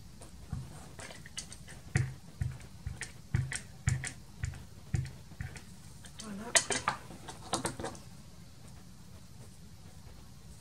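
Rubber or clear stamp on an acrylic block tapped repeatedly against an ink pad and card on a cutting mat: short knocks about two a second for around five seconds. Then a quicker clatter of hard plastic pieces being handled.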